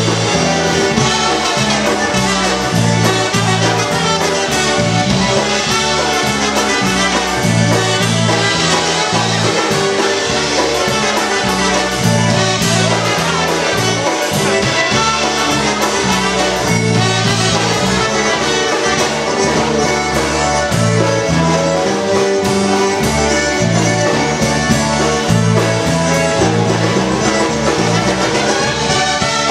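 Live polka band playing a polka: trumpets lead over a concertina, bass guitar and drums, with a steady oom-pah bass beat.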